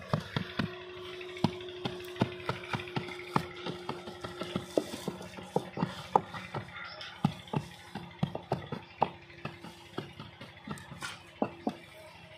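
A wooden hand tamper with two upright handles knocks and scrapes repeatedly as it is pressed and rubbed into crumbly jaggery in a wooden tray, breaking it down into shakkar (granulated raw cane sugar). The knocks come irregularly, about three a second, over a faint steady hum.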